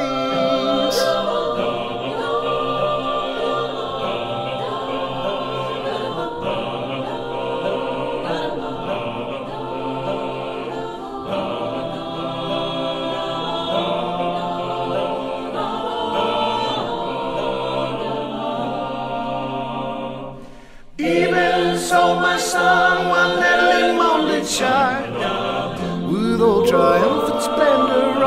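Mixed-voice choir (sopranos, altos, tenors and basses) singing sustained, slowly shifting chords a cappella. About three-quarters of the way through, the singing drops away for a moment, then comes back louder and fuller.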